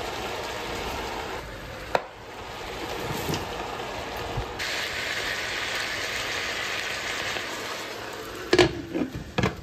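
Chicken pieces sizzling in hot oil in a frying pan as sliced vegetables are tipped in, with a sharp click about two seconds in. The sizzle turns louder and hissier about halfway, and a few knocks of a utensil against the pan come near the end.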